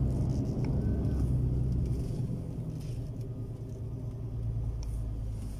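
Lorry's diesel engine and road noise heard from inside the cab while it drives slowly: a steady low rumble that eases off about two seconds in.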